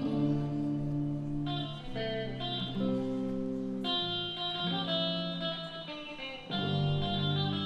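Instrumental music led by guitar, playing sustained chords that change every second or two.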